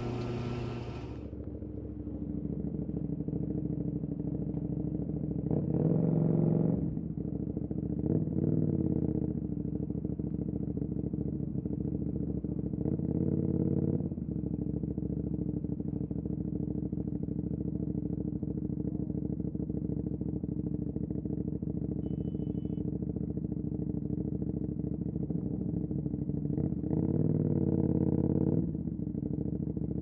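2018 KTM 790 Duke's parallel-twin engine running through an Austin Racing RS22 exhaust, a steady note that swells briefly several times as the throttle is opened, the longest swell near the end.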